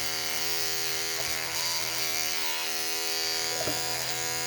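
Electric toothbrush running with a steady buzz, held near a cat's face.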